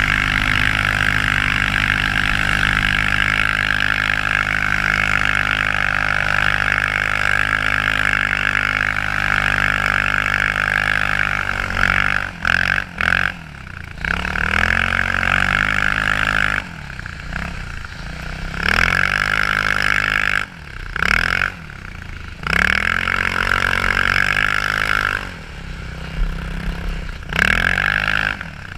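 Quad ATV engine running at a steady speed under load for about twelve seconds. Then the throttle is closed and opened again several times, the revs falling and rising with each blip.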